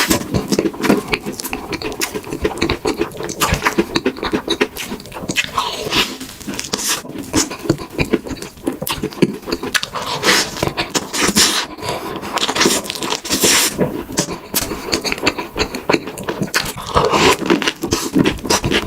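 A dog eating, close up: a dense run of crunching and chewing with many sharp clicks throughout.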